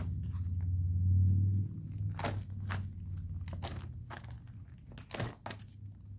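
Trading cards and plastic binder sleeve pages being handled: a string of short crinkles and light clicks, over a low hum that fades after about a second and a half.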